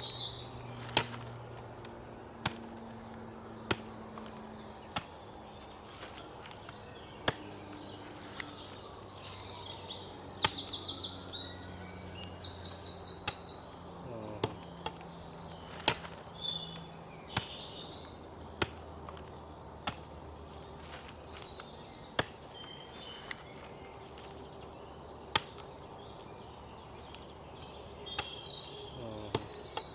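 Birds calling with rapid, high chirping trills over a rural background, with a series of sharp knocks about every second or so.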